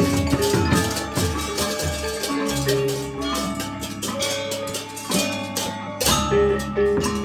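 Music: an ensemble of percussion and pitched melodic notes over a bass line.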